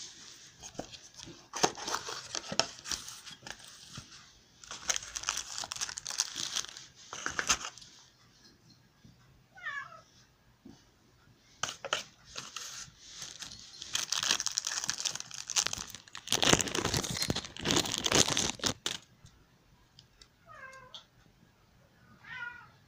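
Hands unpacking a small cardboard box: cardboard scraping and a plastic bag crinkling in several loud bursts. A few short pitched cries come in around ten seconds in and twice near the end.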